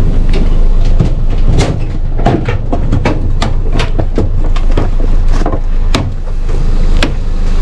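Wind buffeting an unshielded camera microphone over a vehicle's low rumble, with many short clicks and knocks scattered throughout.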